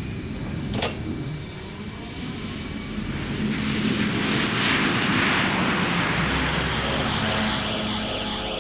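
Synthesized sci-fi vehicle effect passing by: a noisy roar swells over a few seconds, is loudest around the middle, then eases off over a steady low rumble. A single sharp click comes about a second in.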